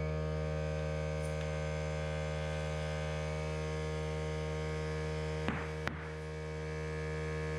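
Air compressor running steadily, a constant motor hum, while a tubeless mountain-bike tyre with a CushCore insert is inflated. About five and a half seconds in come two sharp pops half a second apart, typical of the tyre bead snapping onto the rim as it seats.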